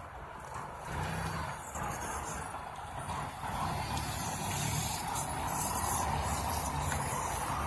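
A car pulling away and driving off, its engine running under a steady scraping hiss of something dragged along the asphalt behind it; the noise grows louder from about a second in.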